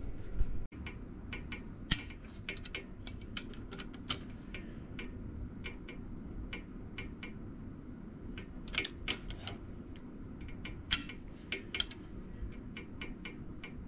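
Ratchet wrench clicking as a bolt in the bottom end of an LS1 V8 block is turned. The clicks come irregularly, some singly and some in quick runs, with light metal clinks of the tool against the bolt.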